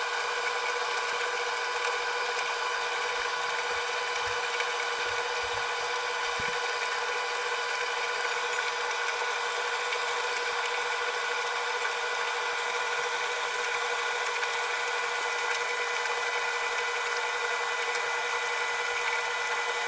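Arçelik 3891 KT heat-pump tumble dryer running mid-cycle: a steady hum made of several fixed tones that holds without change.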